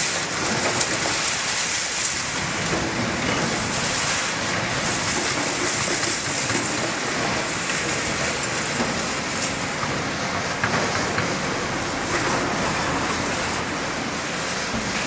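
Excavators working in demolition rubble: diesel engines running under a continuous rattling, crackling clatter of scrap iron and debris being scooped and dropped into a steel container.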